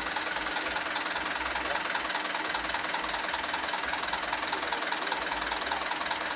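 Truck's diesel engine idling with a steady, even clatter and a faint regular ticking.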